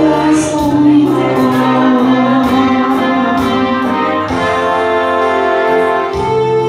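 A woman singing into a microphone over amplified instrumental accompaniment, holding a long note that stops about four seconds in while the accompaniment plays on.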